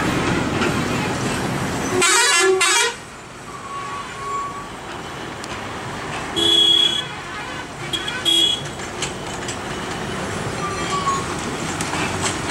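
Heavy trucks running slowly at a hairpin bend, with a loud, harsh burst of noise about two seconds in that stops abruptly. After that the engines are quieter, and a vehicle horn sounds two short toots, about six and eight seconds in.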